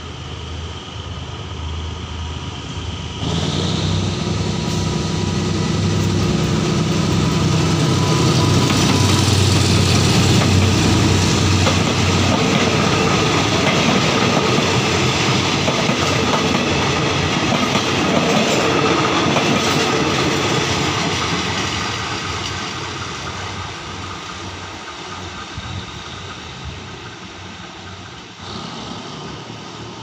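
GEK-class diesel-electric locomotive running under power as it passes close, followed by a rake of passenger coaches rolling by on the rails. It starts suddenly loud about three seconds in, with the engine note strongest for the first several seconds, then the steady noise of the coaches, and fades as the train draws away.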